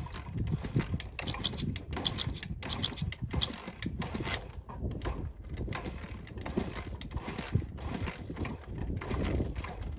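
Irregular mechanical clicking and clunking over a low rumble, with no steady engine note.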